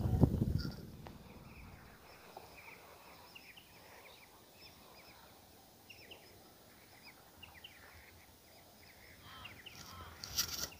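A flock of birds chirping, many short faint calls scattered through, with low wind noise on the microphone in the first second or so and a brief noisy burst near the end.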